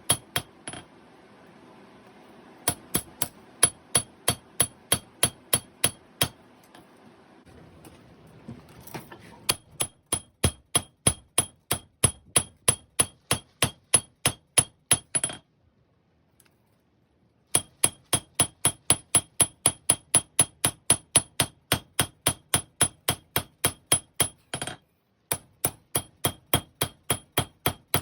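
Hammer blows on a ringing steel anvil, about three a second in several quick runs with short breaks between them: hand-forging 5160 steel to draw out a knife blade. A steady rushing noise lies under the strikes for roughly the first third.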